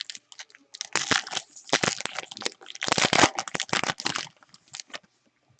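Wrapper of a trading-card pack crinkling and tearing as it is opened and handled, a dense crackle that dies away near the end.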